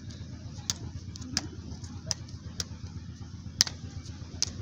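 A soccer ball being kicked back and forth by bare feet and bouncing on concrete: a series of sharp smacks, roughly one every half second to second, the loudest about three and a half seconds in, over a low steady rumble.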